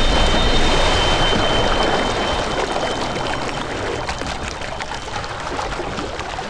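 Splashing, rushing water sound effect, slowly fading away.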